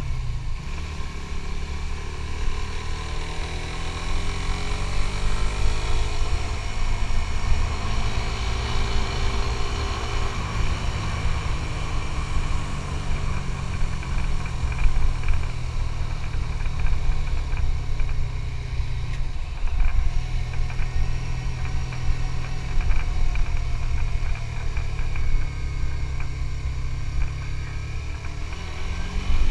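Suzuki GSX-S150's single-cylinder four-stroke engine running on the move, its pitch climbing for several seconds as the bike accelerates, then holding steady at cruise. The note dips briefly about two-thirds of the way in.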